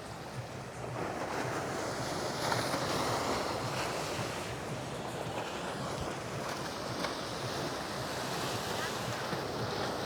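Sea waves washing onto the beach, with wind buffeting the microphone; the surf grows a little louder about a second in.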